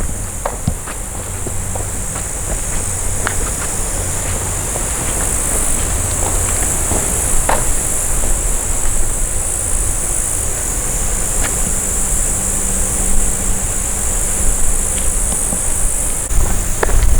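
A chorus of meadow insects, crickets and grasshoppers, chirring in a steady high-pitched drone, over a low rumble with scattered light clicks.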